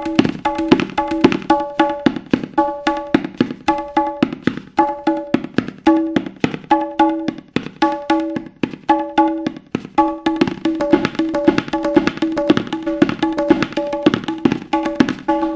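Solo tabla music played on the right-hand treble drum (dayan) alone, without the bass bayan: quick, rhythmic strokes, each ringing at one clear pitch. The playing thins out briefly about halfway through.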